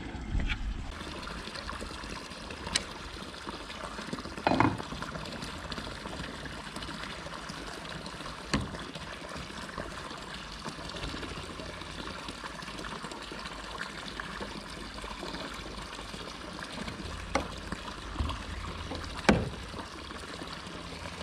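Steady trickling of running water, with a few short knocks, the loudest about four and a half seconds in and near the end.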